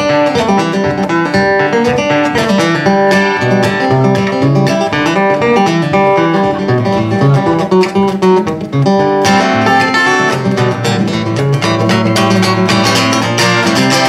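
Solo acoustic guitar taking an instrumental break after the sung chorus: quick picked single-note runs, then fuller, brighter chords from about nine seconds in.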